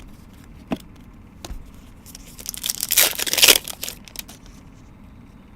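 A trading-card pack wrapper being torn open: a sharp click, then about two seconds of tearing and crinkling.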